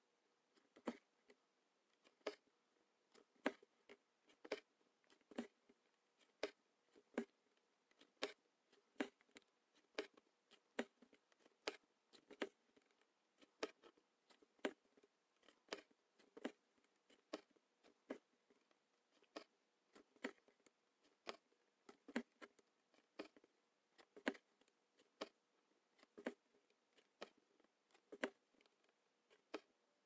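Hand-embroidery needle punching through fabric stretched in a hoop: sharp light taps about once a second, sometimes two close together, as short stitches are sewn.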